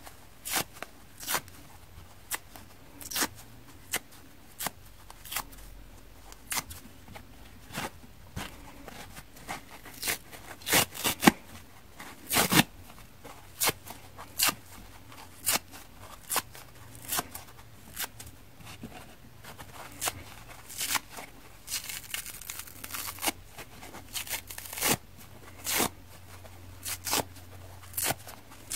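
Dry kitchen sponge's soft pink foam torn by hand into small chunks: a run of short, sharp rips, roughly one a second, some coming in quick clusters.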